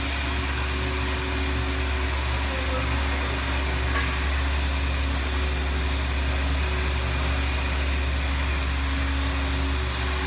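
Steady hum of a CNC plasma tube cutting machine, a constant low drone with a couple of steady tones that drop out and come back a few times.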